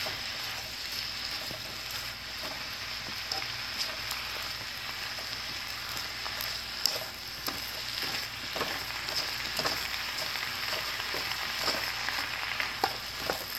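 Chicken and vegetables sizzling in oil in a hot pan, stir-fried with steady frying hiss. Tongs tossing the food give scattered clicks and scrapes against the pan, one sharper click about halfway through.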